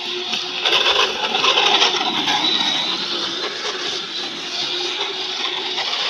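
Joysway US-1 RC speedboat's electric motor whining as the boat runs across the water, with the hiss of its hull spray; the whine wavers slightly and gets louder about a second in.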